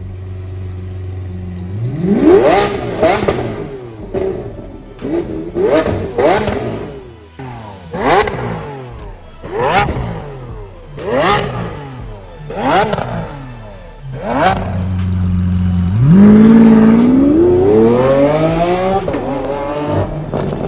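Lamborghini Aventador SVJ's naturally aspirated V12 through a Fi Exhaust valvetronic catback. It idles, then gives about nine sharp throttle blips, each climbing and falling quickly in pitch. About two-thirds through it settles into a long pull as the car accelerates away, the pitch climbing steadily.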